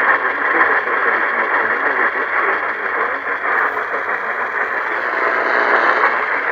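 Steady hiss of radio static through a receiver's narrow audio band, with no voice coming through.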